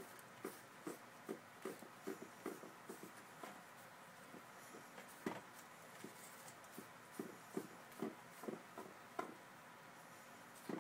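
A cat licking horizontal window blind slats: a faint, regular run of short clicks, about two or three a second, with a short pause around the middle.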